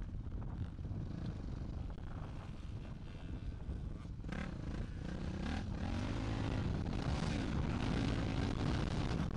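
Motocross dirt bikes revving and riding off across a dirt track, over a steady low rumble of wind on the microphone. The engine noise grows louder from about halfway through.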